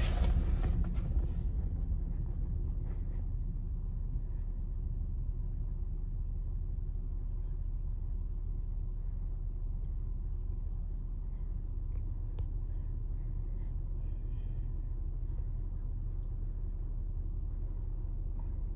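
Union Pacific freight train's last cars passing close by, heard from inside a car. The train noise dies away within the first couple of seconds, leaving a steady low rumble.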